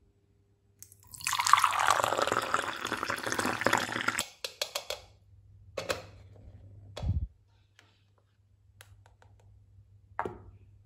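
Liquid poured from a small plastic toy blender jar into a small plastic cup, splashing for about three seconds. A few light plastic clicks follow, with a dull thump about seven seconds in and a knock near the end as the toys are handled.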